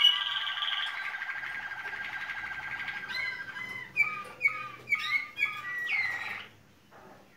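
Waterslager (Malinois) song canary singing: a rolling trill that fades over the first three seconds, then a run of short falling notes about two a second that stops about six and a half seconds in.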